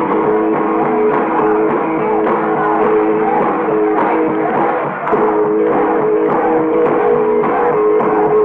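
Rock and roll band playing live, with guitar and drums, in an old concert recording.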